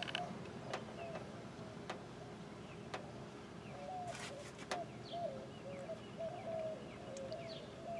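A dove cooing faintly, a run of low wavering notes in the second half, with a few faint clicks.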